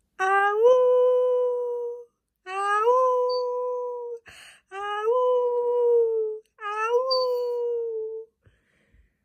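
Alaskan Malamute howling four times in a row, each howl rising in pitch at its start and then held level for about one and a half to two seconds, with short pauses between.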